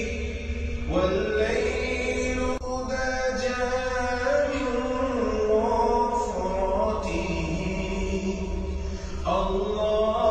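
Background vocal music: a voice chanting in long, sliding held notes over a steady low drone, with a new phrase starting about a second in and another near the end.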